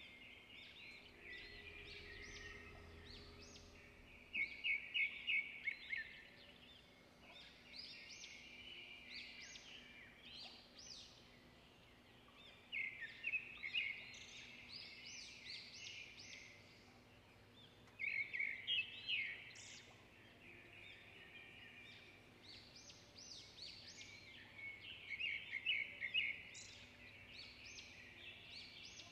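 Small birds chirping and twittering, with a louder burst of quick trilled notes every six or seven seconds.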